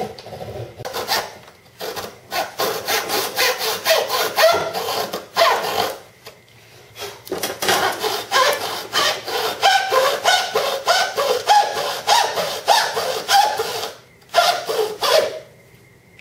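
Hacksaw with a waxed blade cutting into a moulded fibreglass model-aircraft wing: quick back-and-forth rasping strokes. They break off for about a second around six seconds in, pause briefly near the end, then stop.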